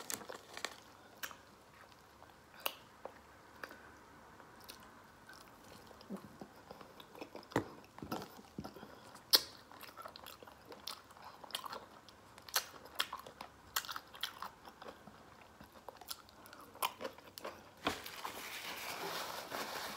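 Close mouth sounds of a person eating a cheese-sauce-covered Italian beef sandwich: wet chewing and smacking with scattered sharp lip and tongue clicks. Near the end, the sandwich's paper wrapper rustles as it is picked up.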